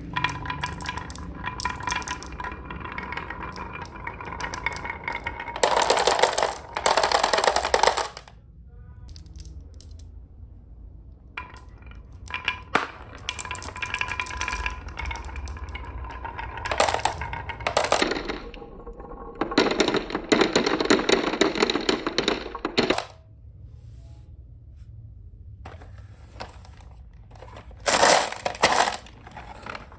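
Marbles rolling and clattering down a marble run: a dense stream of rapid clicks and rattles with a faint rolling hum, broken by several louder bursts of clatter.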